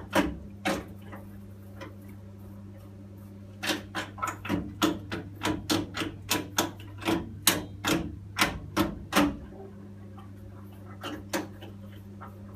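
Boiler running with a steady low hum, over which come sharp irregular tapping knocks: a couple at the start, a fast run of them, about three a second, through the middle, and two more near the end.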